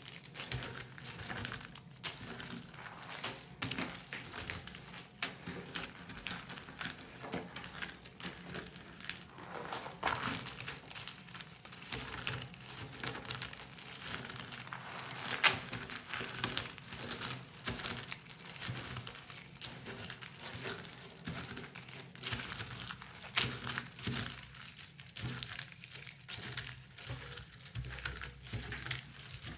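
Pieces of an assembled Tomax jigsaw puzzle being pulled and broken apart by hand, giving a dense, continuous stream of small clicks, crackles and rustles, with one sharper snap about halfway through.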